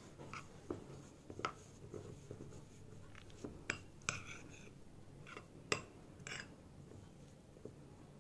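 A steel spoon stirring and scraping milk-moistened semolina in a cut-glass bowl. Faint scraping is broken by scattered light clinks of the spoon against the glass, and a few of the clinks ring briefly.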